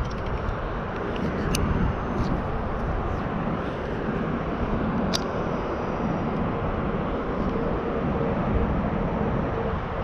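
Steady outdoor background noise with a low rumble, broken by two sharp clicks, one about a second and a half in and one about five seconds in.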